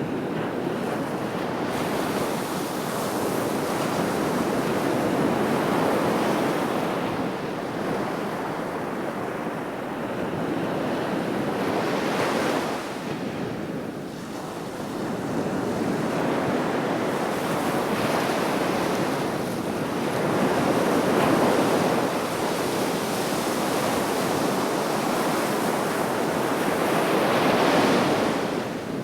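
Sea waves breaking and washing on the shore in a steady rush that swells and ebbs in surges every several seconds.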